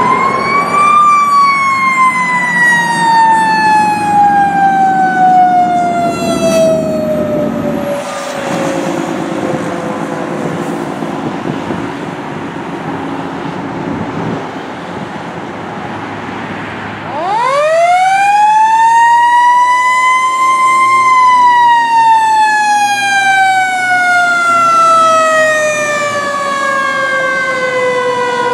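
A fire engine's siren on a 2008 Sutphen winds up to a high wail and slowly falls in pitch, twice. The first rise comes just at the start, and the second comes about seventeen seconds in after a quieter stretch. Traffic and engine rumble run underneath.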